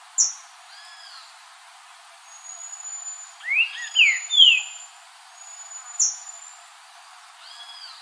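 Green-winged saltator (trinca-ferro) singing a short phrase of three loud slurred whistles about halfway through, the first rising and the next two falling. Two sharp, very high notes come near the start and at about six seconds, with thin high whistles between them.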